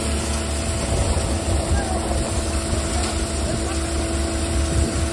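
Tractor-driven multi-crop thresher running steadily while threshing, a constant mechanical drone with a low engine hum under it and a few steady tones from the spinning drum and fans.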